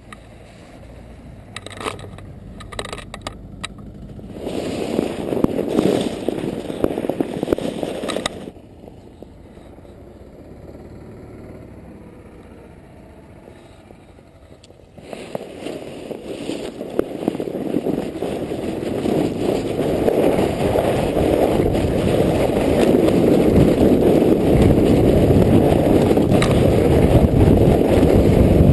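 Sled sliding and scraping over packed snow while being towed, a rough crunching hiss right at the sled. It grows loud about four seconds in, falls back to a quieter rush about eight seconds in, and from about fifteen seconds builds steadily louder to the end.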